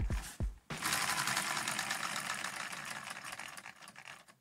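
LEGO V-twin vacuum engine with its timing chain off, spun by hand at the flywheel and turning freely: a couple of short knocks, then from about a second in a fast, even plastic clatter that slowly fades as it coasts down.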